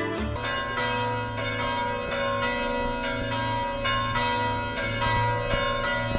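Church bells ringing: several bells struck one after another, each note ringing on long and overlapping the next.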